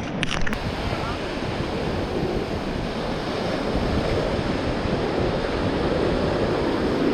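Surf washing onto a beach, a steady rush of waves, with wind buffeting the microphone. A few short clicks sound right at the start.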